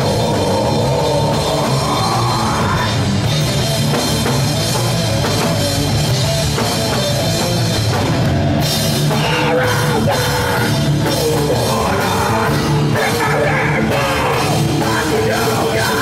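Live rock band playing loud: distorted electric guitars and a pounding drum kit, at a steady full level.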